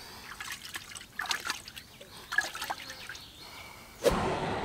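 Water splashing and trickling in a plastic bait bucket as hands move around in it, in short irregular sloshes. About four seconds in, a louder, steadier rush of noise starts suddenly.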